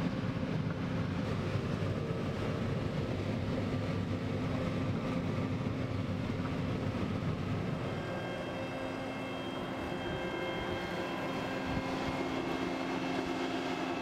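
John Deere combine running: a steady machinery rumble with shelled corn pouring into the grain tank. About eight seconds in the rumble thins and a few steady whining tones come through.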